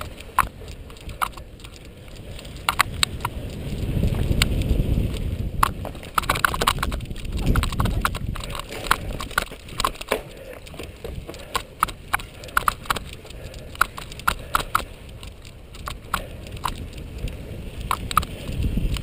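Cyclocross bike ridden fast over rough dirt and grass: a low rush of wind and tyre rumble that swells and fades, with many sharp clacks and rattles from the bike jolting over bumps.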